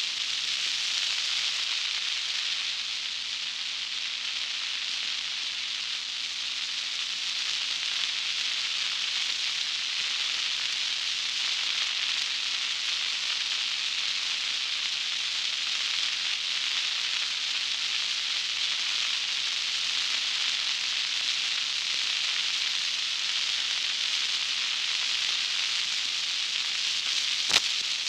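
Steady hissing road noise of a vehicle driving on a gravel highway, with a faint steady hum underneath and a single sharp click near the end.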